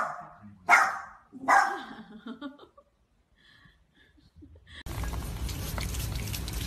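Small dog barking three times, about one bark every 0.8 seconds, then falling quiet. About five seconds in, a steady noisy background starts abruptly.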